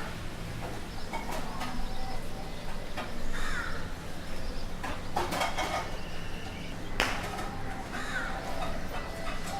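Indian city street ambience: crows cawing several times over a steady low hum of street noise, with a sharp knock about seven seconds in.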